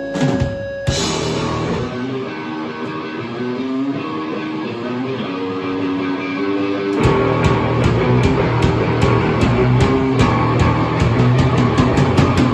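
Rock band playing live: an electric guitar plays a riff alone, and about seven seconds in the drums and bass come in with a steady beat.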